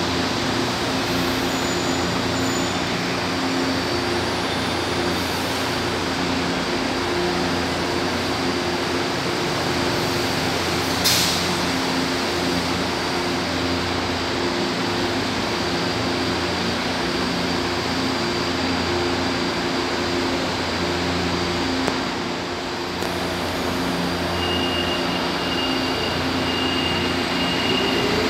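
CAF-built São Paulo Metro H-series train standing at the platform with its doors open, its onboard equipment giving a steady hum over the station noise. A brief sharp hiss comes about eleven seconds in, and a thin high tone sounds for the last few seconds.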